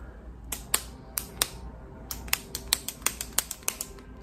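Plastic clicks from a click-type lip gloss stick being pressed over and over, at first a couple a second and then faster, about five or six a second, in the second half.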